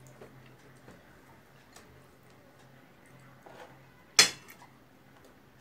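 Fingers scraping food off a ceramic plate with a few faint light clicks, then one sharp clink of dishware, china or glass knocking together, about four seconds in.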